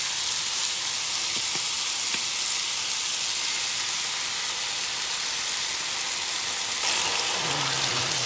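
Meatballs, mushrooms and onions sizzling steadily in a hot frying pan as barbecue sauce is squeezed over them, then stirred in with a spatula near the end.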